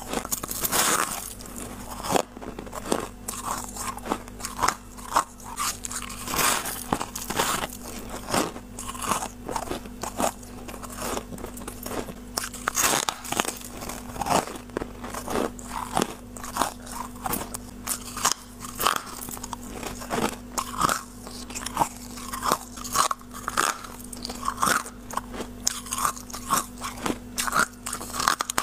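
A person biting into and chewing a clump of freezer frost: many sharp, irregular, crisp crunches with wet chewing between them.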